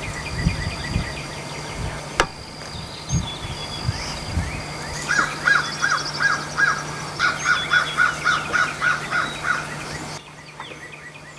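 Birds calling: chirps and trills, then from about five seconds in a run of repeated short calls, about four a second. Dull low thumps sound in the first few seconds.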